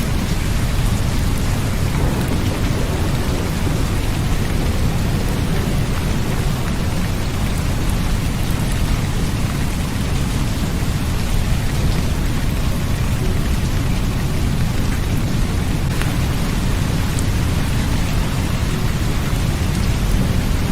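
Steady rain falling, with a continuous deep rumble underneath and a few sharper drop ticks now and then.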